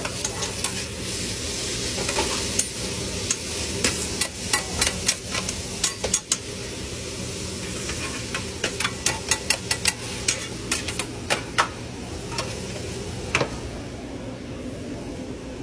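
Chopped steak, onions and peppers sizzling on a flat-top griddle while metal spatulas chop, turn and scrape them, clacking sharply against the steel many times. The sizzle thins near the end.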